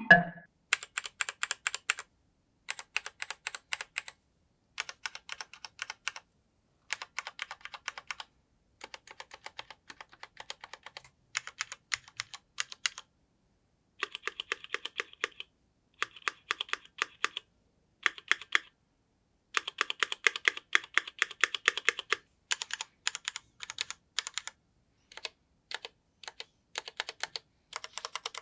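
Typing on a Cherry MX Board 3.0S RGB mechanical keyboard with Cherry MX Red linear switches. It comes in short runs of rapid keystrokes, each a second or two long, separated by silent gaps.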